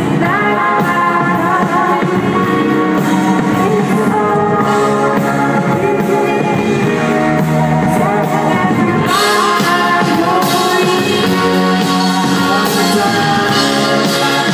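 Live performance by a psychedelic pop band: a woman singing into a microphone over electric guitar and the full band.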